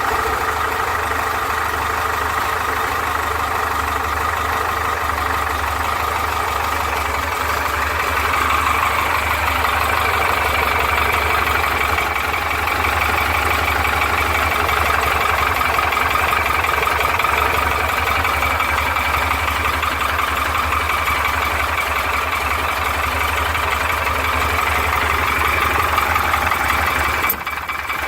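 Porsche 912's air-cooled flat-four engine running steadily at idle, with the piston slap that the owner is showing off. There is a brief drop near the end.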